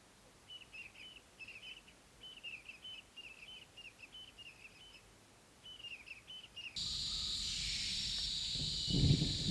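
A bird calling in quick runs of short, downward-slurred chirps. About seven seconds in, this cuts abruptly to a louder, steady high-pitched ambience, and a low rumble begins near the end.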